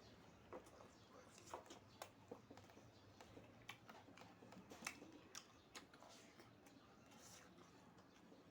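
Faint eating sounds: irregular soft clicks, smacks and crunches of someone chewing food close to the microphone.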